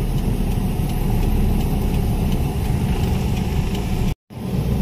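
Car engine and road noise heard from inside the cabin while driving, a steady low rumble. It cuts out for a split second near the end, then returns.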